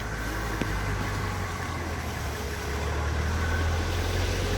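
Coach engine running with a steady low rumble, getting a little louder about three seconds in.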